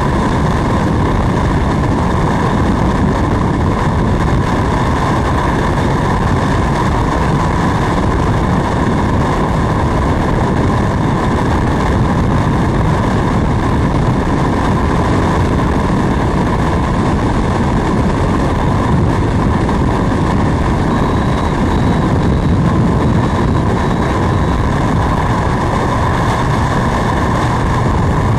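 Freefall wind rushing over a skydiver's helmet-mounted camera microphone, a loud, steady noise.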